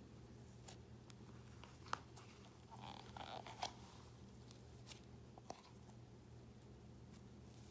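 Cookie-dough cloud cream slime stretched and pulled out of its jar by hand, giving faint sticky crackles and small pops, the loudest about two and three and a half seconds in, over a low steady hum.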